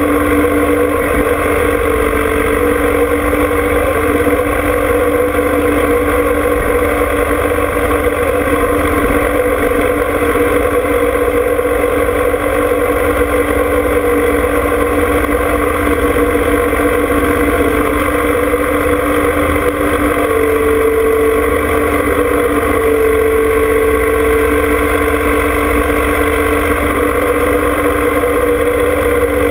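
John Deere 2305 compact tractor's three-cylinder diesel engine idling steadily.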